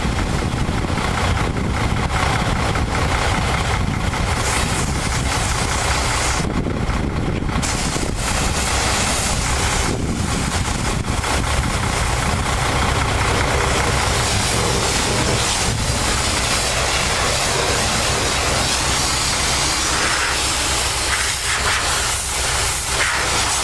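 A pressure-washer spray wand hissing as it sprays a semi tractor's wheel and cab, over a steady engine drone. The high hiss thins briefly about seven seconds in.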